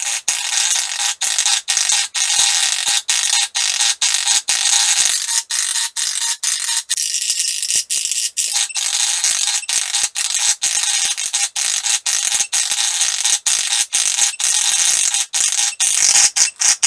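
A toy octopus's sound chip playing through its small speaker while over-volted from a bench power supply: a loud, harsh, glitching electronic noise in place of its tune, broken by brief dropouts a few times a second.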